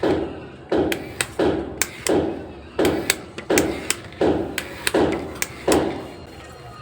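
A steady rhythm of soft thumps, about one and a half a second, with sharp taps falling between them.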